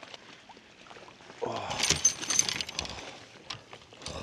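A hooked smallmouth bass splashing and thrashing at the boat's side as it is landed: one loud burst about a second and a half in, lasting a second or so, followed by a few light clicks near the end.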